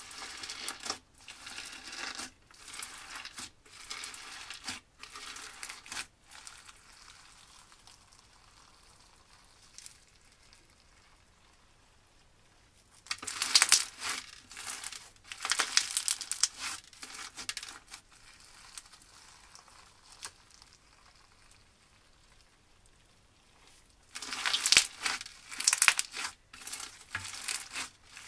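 Crunchy, gritty slime being squeezed and kneaded by hand, crackling and crunching in bouts: a run of short crunches at first, then two louder spells of squeezing about halfway through and near the end, with quiet stretches between.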